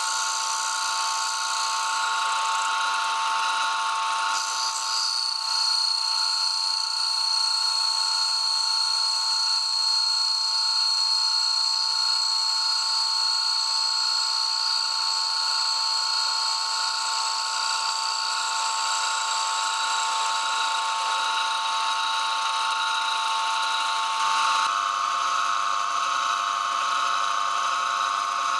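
Lathe running steadily with a whine, its cutting tool turning down a spinning disc of glued bamboo parquet. Near the end the sound changes as a drill bit held in the tailstock bores into the centre of the disc.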